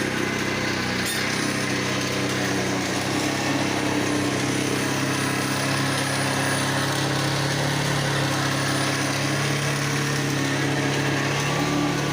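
Bajaj Pulsar 150's single-cylinder four-stroke engine idling steadily.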